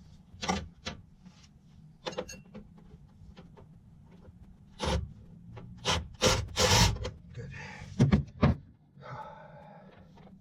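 Hand work on an HVAC packaged unit: irregular knocks and clicks of parts and tools being handled, with a longer scrape about two thirds of the way through and a softer rustle near the end.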